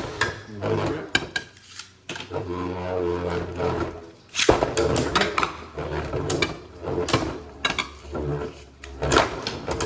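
Beyblade Burst spinning tops landing in a plastic stadium just after launch, then spinning with a steady whirring hum and clashing again and again in sharp clacks. A hard hit about four and a half seconds in is the loudest.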